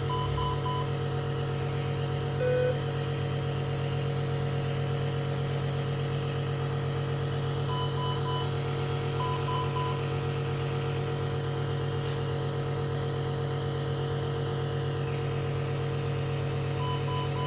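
Steady mechanical hum of hospital equipment, with a patient monitor alarm sounding groups of three short electronic beeps: at the start, twice around eight to ten seconds in, and again near the end. A single longer, lower beep comes about two and a half seconds in.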